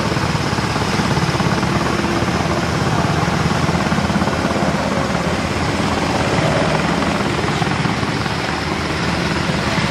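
NH90 twin-turbine helicopter flying overhead just after take-off: a steady, loud rotor beat over the turbines' whine.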